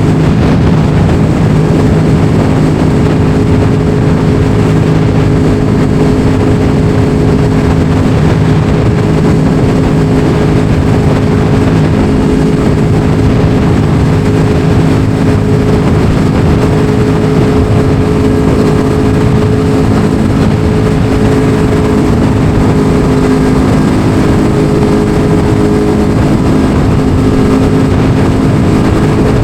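Motorcycle engine held at steady revs while riding, with a steady rush of wind noise.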